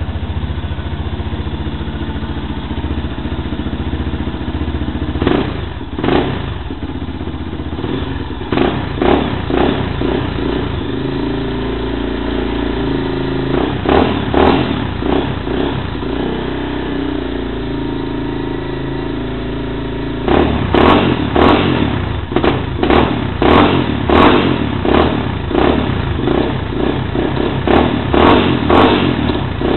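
Yamaha Fazer 250 single-cylinder engine running through a Coyote TRS aftermarket exhaust, idling and revved in short throttle blips. A few blips come in the first half, then a quick run of about a dozen from about two-thirds of the way in.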